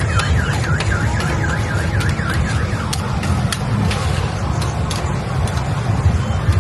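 A warbling electronic alarm tone, sweeping down and up about three times a second, that stops about three seconds in, over a steady low rumble of street traffic.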